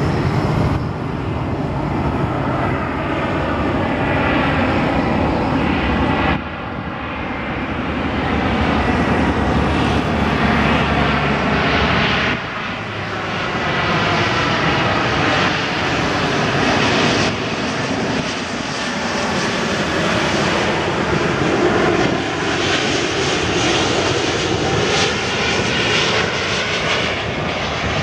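Jet engines of a twin-engine airliner on final approach with gear down, flying low overhead, a steady jet noise with a sweeping whistle as it passes. The sound drops abruptly twice, about six and twelve seconds in.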